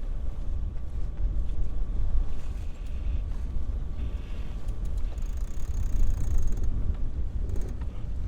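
Wind rumbling on the microphone aboard a sailboat under way, a steady low buffeting noise.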